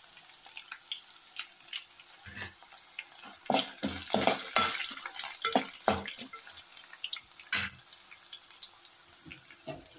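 Peanuts, garlic and dried red chillies sizzling in hot oil in an aluminium pan, a steady hiss with irregular crackles and knocks, thickest from about two to eight seconds in.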